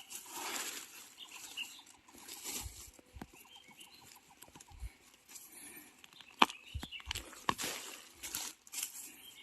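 Rustling of dry bamboo leaves and stalks as someone pushes through a bamboo thicket, with scattered small crackles. Two sharp snaps come in the second half, as golden bamboo shoots are broken off.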